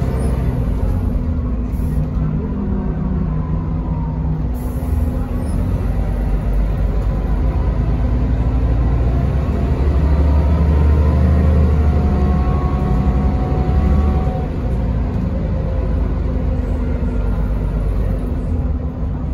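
Interior noise of a 2001 Mercedes-Benz O405NH bus under way: the rear diesel engine and drivetrain make a steady low rumble, with a faint whine above it. The sound swells from about ten seconds in, as the bus pulls harder, and eases off after about fourteen seconds.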